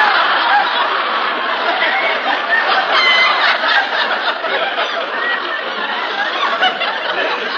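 Studio audience laughing at length, a long continuous wave of laughter that eases off slightly near the end.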